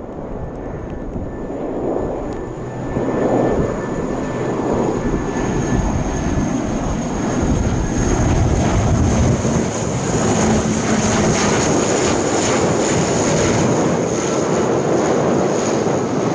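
Lockheed Martin CC-130J Super Hercules's four Rolls-Royce AE 2100 turboprops with six-bladed propellers, flying a landing approach with gear down. The propeller drone grows louder over the first few seconds as the aircraft closes in, then holds, with a steady high turbine whine over it.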